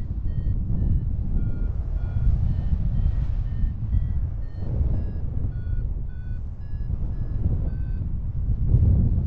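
Low wind rumble on the microphone, with a run of short high beeping notes, about two or three a second, each at a different pitch.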